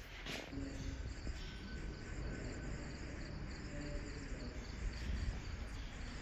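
Crickets chirping, a faint pulsing trill, over a low rumble.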